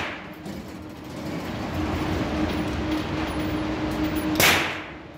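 One handgun shot cracks about four seconds in, echoing briefly in the indoor range, with the fading echo of an earlier shot at the start. Under it runs the steady roar and hum of the range's ventilation.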